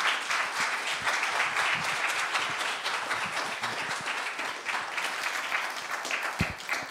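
Church congregation applauding: many hands clapping in a steady patter that thins toward the end. A single low thump about six and a half seconds in.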